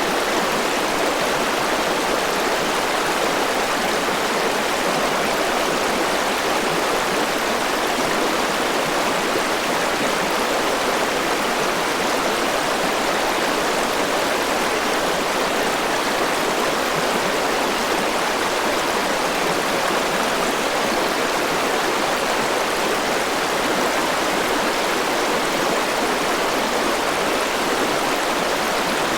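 Forest river rushing over rocks: a steady, even rush of flowing water with no change in level.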